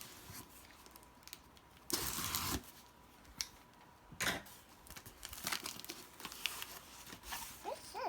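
A cardboard box being opened by hand: packaging tears and crinkles, with a longer rip about two seconds in, a short sharp tear about four seconds in, and scattered rustles and taps between.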